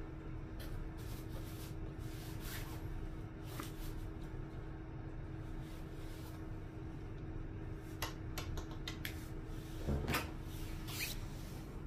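Scattered light clicks and knocks of speaker parts being handled and fitted together during reassembly, with a duller knock about ten seconds in.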